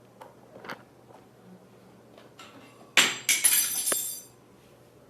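Kitchenware clinking: a sharp knock about three seconds in, a second just after, then about a second of bright clinks with a high ringing that fades, like a glass bowl or metal mixer beaters being struck while being moved.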